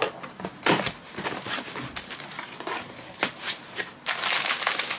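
Parcel packaging being handled and opened by hand: scattered rustles and light taps, then about a second of dense crinkling near the end.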